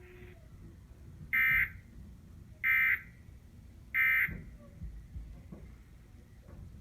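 Emergency Alert System end-of-message signal: three short digital data bursts, a little over a second apart, which mark the close of the broadcast tornado warning.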